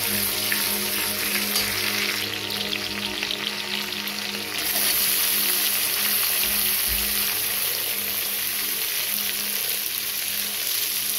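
Garlic, ginger and green chilli sizzling in hot oil in an iron kadhai while being stirred. About four and a half seconds in, chopped onions go into the pan and the sizzle grows louder and stays up.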